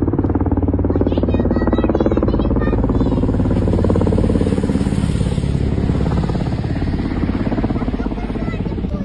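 Kamov Ka-52 Alligator attack helicopter flying past, its coaxial rotors making a steady, fast chopping beat that eases off slightly near the end.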